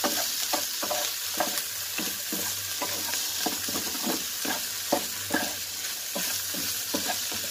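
Diced ham, hotdog and mixed vegetables sizzling in oil in a non-stick frying pan, under a steady hiss, while a plastic spatula scrapes and knocks against the pan in quick, irregular stirring strokes, about two or three a second.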